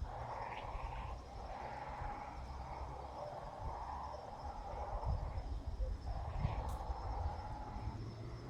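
Nestling birds giving repeated raspy, hissing calls, each about a second long with short pauses between, over a low rumble of wind on the microphone.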